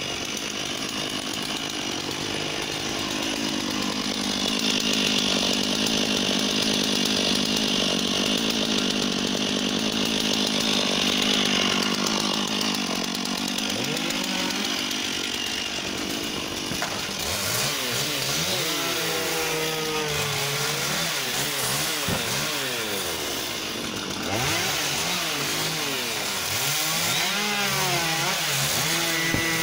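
Husqvarna 540 XP chainsaw held at a steady full throttle through a cut for about fifteen seconds, then revved up and down again and again.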